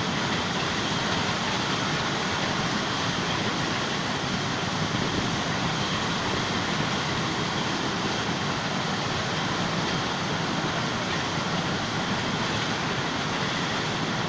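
A long rake of sugar cane bins on a narrow-gauge cane railway rolling past, making a steady noise of wheels running on rail.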